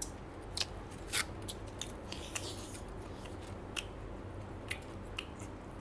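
Close-up eating sounds of roast chicken being torn and eaten by hand: irregular soft clicks and crunches of chewing and biting, over a faint low hum.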